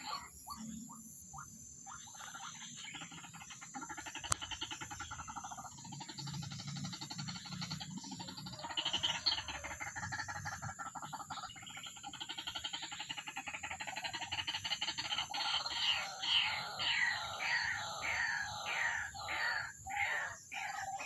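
White-breasted waterhen calling: a long run of repeated harsh notes that settles into a steady, evenly spaced series near the end. A single sharp click about four seconds in.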